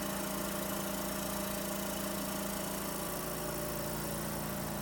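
Suction unit's vacuum pump running with a steady, even hum, switched on to check the suction pressure.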